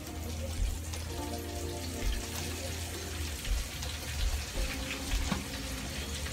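Battered rabbit pieces deep-frying in a pot of hot oil: a steady bubbling sizzle with fine crackles.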